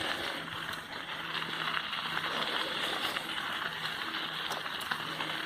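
Steady rolling noise of a mountain bike riding a dirt trail, the tyres running over gravel and dirt with a few faint clicks and rattles.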